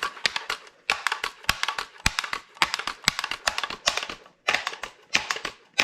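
Daisy 880 multi-pump air rifle being worked by hand: an uneven run of sharp plastic and metal clicks and clacks from its bolt and pump action, in clusters throughout.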